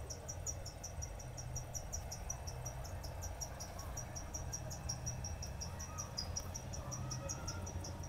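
Crickets chirping in a steady, rapid series of short high pulses, about six a second, over a low steady hum.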